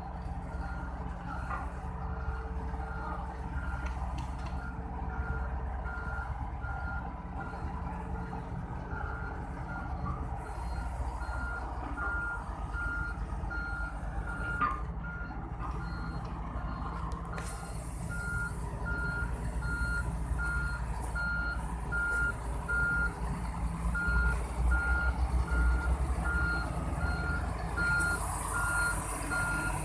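Pile-driving rig's diesel engine running with a steady low rumble, and a repeating high-pitched warning beeper coming in about ten seconds in. The engine grows louder near the end.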